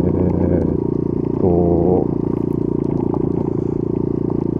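Honda Monkey Z50J's small four-stroke single-cylinder engine running steadily while the bike rolls along a gravel track, with light clatter and scraping over the rough surface.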